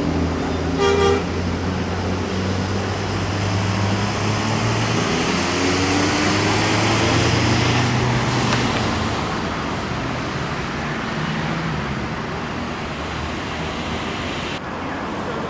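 Road traffic: a short horn toot about a second in, then a vehicle engine rising in pitch as it accelerates past, with road noise that swells and then fades.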